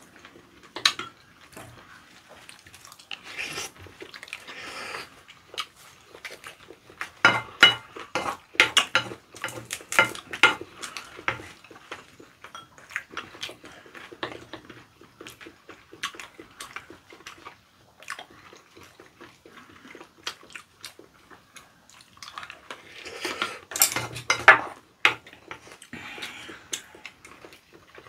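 Close-up eating sounds: chewing and smacking mouthfuls of raw squid sashimi and rice, with chopsticks and a spoon clicking and scraping against bowls. The clatter and chewing grow busier and louder about seven to eleven seconds in and again near twenty-four seconds.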